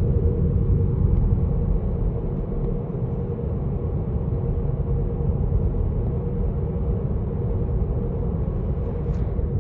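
Road and tyre rumble of a moving car heard from inside the cabin, steady and low, with a faint steady hum over it.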